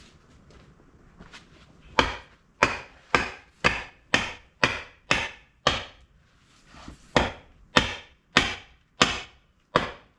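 Hammer blows striking repeatedly, about two a second, starting about two seconds in, with a brief pause midway before the strikes carry on.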